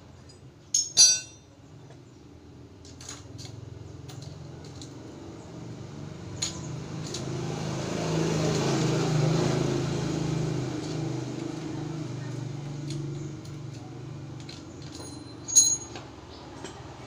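Metal hand tools clinking against each other and the engine parts as an old Honda Supra X motorcycle engine is taken apart: a sharp ringing clink about a second in and another near the end, with a few lighter taps between. In the middle a low rumble swells and fades over several seconds.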